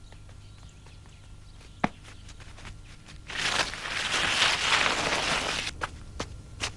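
Fight-scene sound: scattered footsteps and scuffles on dirt, with one sharp hit a little before two seconds in. About three seconds in, a loud rushing burst of noise sets in and lasts roughly two and a half seconds.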